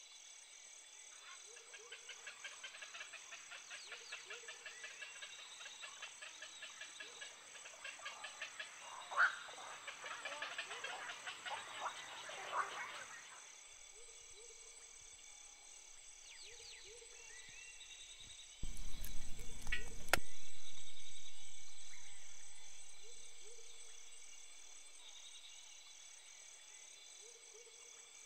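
Rice-field chorus of frogs calling and insects chirring, dense for the first half and thinning out after. About two-thirds through there is a sudden loud burst of noise lasting a second or two, which then fades away over several seconds.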